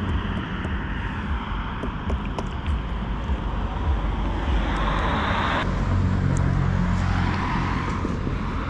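Street traffic, with a car passing. The steady road noise swells, drops sharply a little past halfway, and gives way to a low engine hum.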